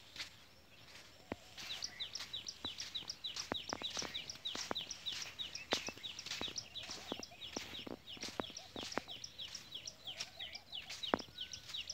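A bird chirping rapidly and repeatedly, a quick string of short high falling chirps that starts about two seconds in and keeps on, with scattered sharp clicks among them.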